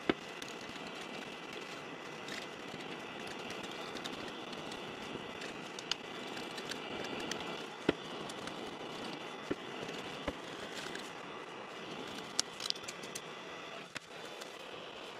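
Sharp clicks and knocks of a crayon block being handled at a lathe chuck, a handful of them spaced a few seconds apart, over a steady background hiss.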